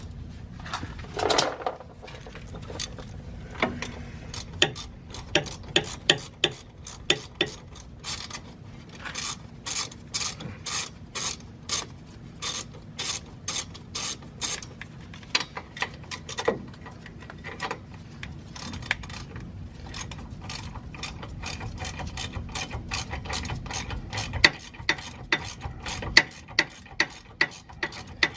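Husky hand ratchet with a 17 mm socket clicking steadily as it backs out a loosened rear wheel hub mounting bolt, in repeated strokes of the handle. The clicks get louder near the end.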